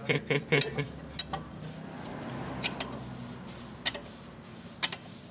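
Sharp metallic clicks, about half a dozen at uneven intervals, some in pairs, as a steel tool levers the brake adjuster through the slot in a truck's drum brake to set the shoes closer to the drum.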